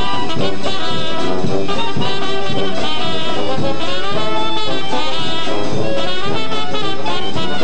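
High school marching band playing a lively brass-led tune, trumpets, trombones and saxophones over drums.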